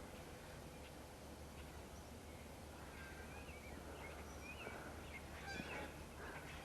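Faint chirps and short calls from several small birds, starting about three seconds in, over a steady low hum.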